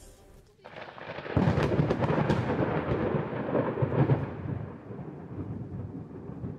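Thunder sound effect: a rumbling crack builds up about a second in, stays loud for a few seconds with crackles, then slowly rolls away.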